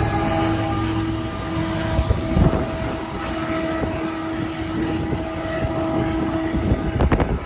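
CN intermodal freight train passing slowly: a steady rumble with a held droning tone, broken by a couple of knocks about two seconds in and near the end.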